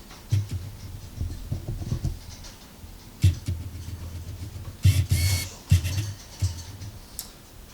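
Handling noise: irregular knocks, thumps and scrapes of cardboard fireworks boxes being moved, with some rustling.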